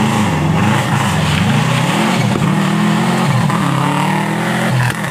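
Subaru Impreza rally car's flat-four engine revving hard through a corner, its pitch climbing and dropping with throttle and gear changes.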